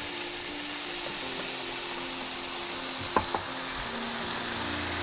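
Ribeye steaks sizzling over a campfire, a steady hiss, with a couple of sharp clicks about three seconds in.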